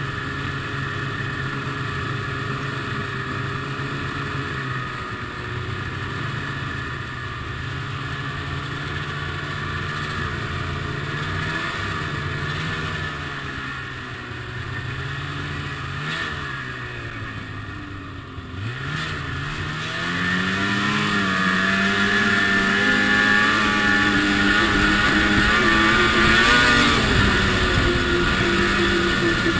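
Ski-Doo MXZ two-stroke snowmobile engine running at a steady cruising speed along a trail. About eighteen seconds in it eases off briefly, then speeds up and runs louder and higher-pitched.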